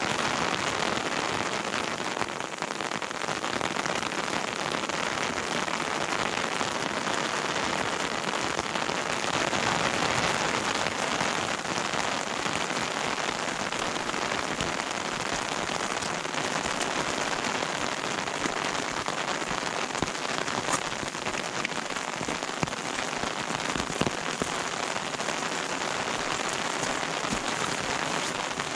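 Steady rain pattering on the forest and trail, an even hiss of drops, with a few louder single drop taps about two-thirds of the way through.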